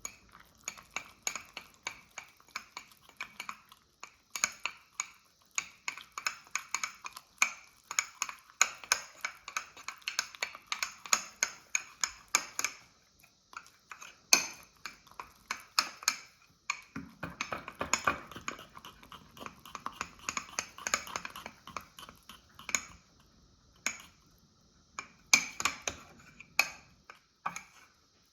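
Metal fork whisking a thick Nutella, egg and flour batter in a mug, clinking quickly and repeatedly against the mug's sides, with a couple of short pauses.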